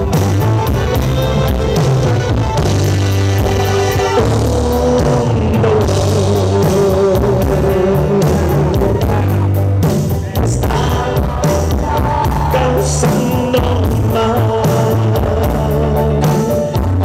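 Live band music over a PA system: electric guitars, drums and keyboards playing a song with a steady beat.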